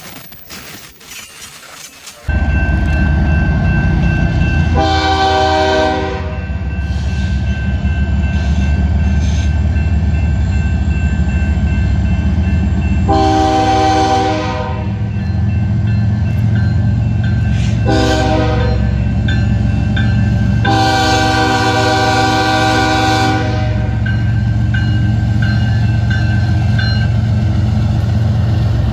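BNSF GE ES44AC diesel freight locomotive approaching a grade crossing, its engine rumbling steadily as it sounds its air horn in four chords: long, long, short, long, the standard grade-crossing warning, with the last blast held longest. The first two seconds are much quieter before the loud rumble starts.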